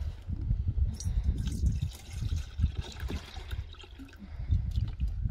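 Water pouring from a plastic gallon jug into a stainless steel bowl, a splashing trickle, over a low rumble of wind on the microphone.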